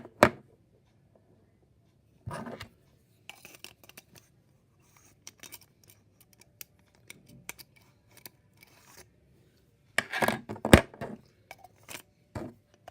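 Small plastic clicks, scrapes and rubbing from hands working the battery compartment of a small battery-operated rotary tool, checked for a loose or missing battery contact spring. The clicks are scattered, with a louder flurry about ten seconds in that ends in one sharp snap.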